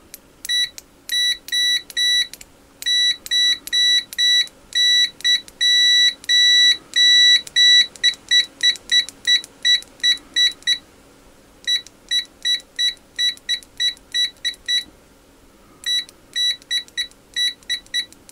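Continuity beeper of a Venlab VM-200M digital multimeter sounding each time the test probe tips touch. It gives a run of high-pitched beeps, some short and some held for up to about half a second, then quicker short beeps at about four a second. It breaks off briefly twice and starts again.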